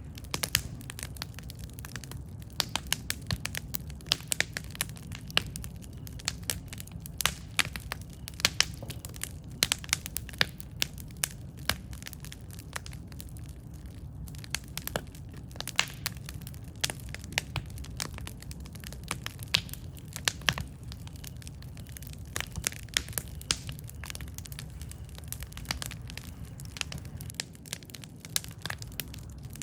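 Campfire burning with a steady low rumble and frequent sharp, irregular crackles and pops from the burning wood.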